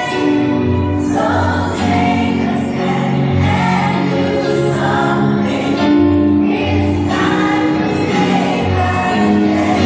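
Children's choir singing a song together with instrumental backing.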